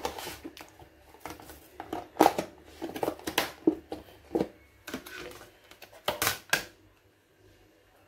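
Irregular clicks, knocks and light rustles of plastic food tubs and cut pineapple chunks being handled and pressed into a tub on a kitchen counter, stopping about seven seconds in.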